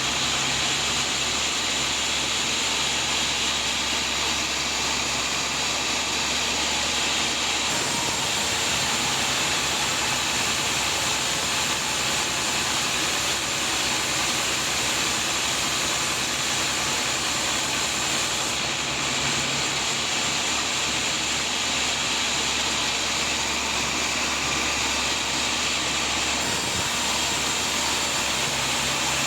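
Sawmill saw running steadily through a large teak log: a loud, even hiss over a low motor hum, with the tone shifting abruptly a few times.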